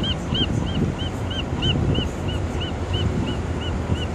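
A short high chirp, rising and falling in pitch, repeated evenly about three times a second over the steady low rumble of the ferry and wind on the microphone.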